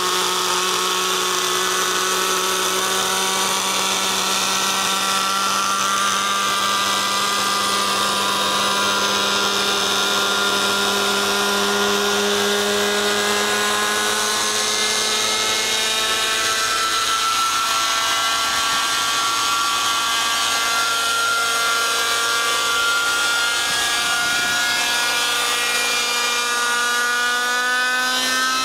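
Thunder Tiger Raptor 50 RC helicopter's glow-fuel (nitro) two-stroke engine running with the main rotor turning, taking off into a hover. The engine note holds steady in level, wavers in pitch, and climbs near the end.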